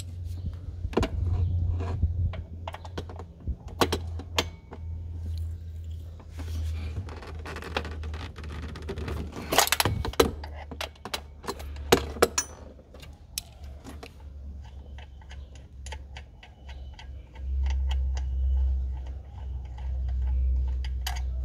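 Ratchet wrench and 15 mm socket clicking, with metal tools clinking, while loosening the upper and lower bolts of a belt tensioner damper. A steady low hum runs underneath.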